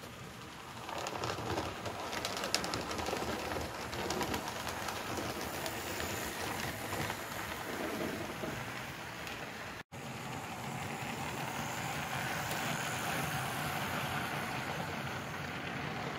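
HO-scale model train running past on the layout track: the rattle of small wheels on the rails over the hum of the locomotive's motor, with some light clicking in the first few seconds.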